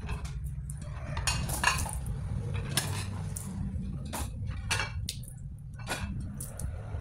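Ceramic plates clinking against each other and against a dish rack as they are lifted off a stack and set in to drain, about half a dozen separate clinks at irregular intervals. A steady low hum runs underneath.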